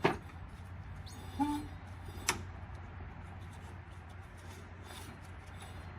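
A few sharp clicks and a short knock of metal parts being handled on a lawnmower engine, over a steady low hum.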